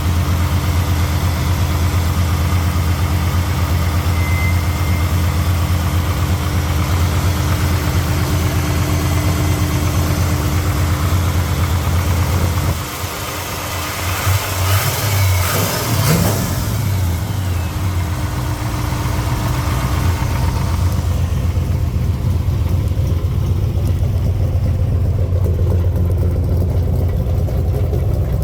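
Chevrolet 383 stroker small-block V8 idling steadily through long-tube headers and dual exhaust. Just before halfway the sound dips briefly, then there is a short unsteady, noisier stretch before the steady idle returns.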